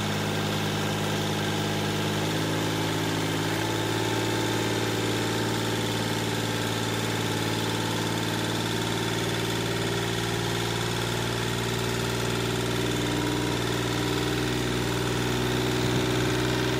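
Kioti CK3510 compact tractor's three-cylinder diesel engine running steadily at low revs.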